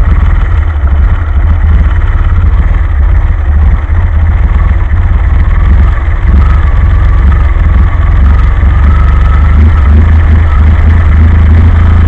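DeLorean PRV V6 on a Motorcraft 2100 two-barrel carburetor idling roughly and lopey: the idle outlet screws are turned in too far, so it idles on the curb idle screw with the throttle plates cracked open instead of on the idle circuit.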